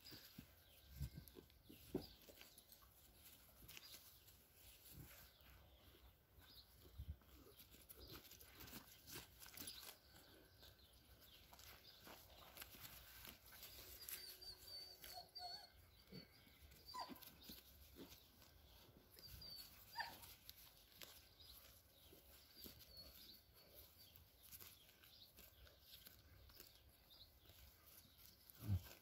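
Near silence: faint background with scattered small rustles and clicks, and a few faint high chirps about halfway through.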